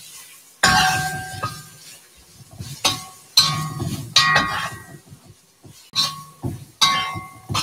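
Metal wok shovel clanging and scraping against a cast iron wok while stir-frying thin beef strips. It strikes about seven times at uneven intervals, and each clang rings briefly before fading.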